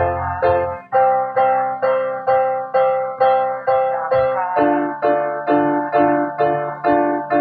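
Piano playing steady repeated chords, about two strikes a second, moving to a new chord about a second in and again just past the middle.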